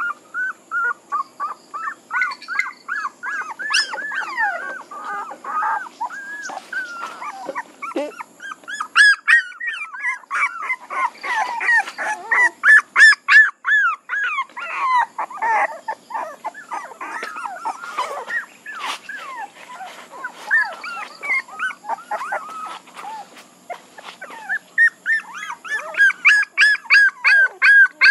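Young puppies whimpering and crying: a steady run of short, high, rising-and-falling yelps, several a second, with a few quieter gaps.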